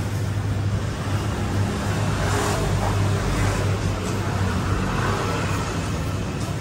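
Steady road-traffic noise with a constant low hum underneath.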